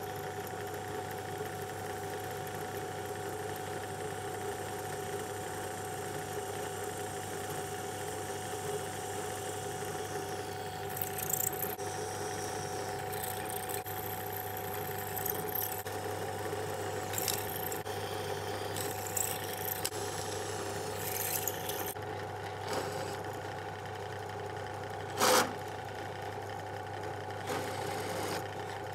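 Drill press running with a steady motor whine and hum while a twist bit drills holes in aluminium plate. Through the middle of the stretch come repeated short, scratchy bursts of cutting, and one sharp knock comes near the end.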